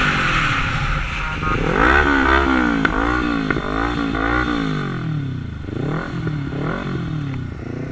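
Sport motorcycle engine heard from the rider's seat, revving up and dropping back again and again in a series of rising and falling glides as the bike accelerates and shifts.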